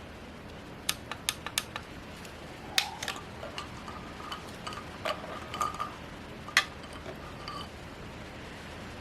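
Small hard plastic objects being handled, unboxing style: a scattered run of sharp clicks and light clinks, some with a brief ring, over a steady background hiss.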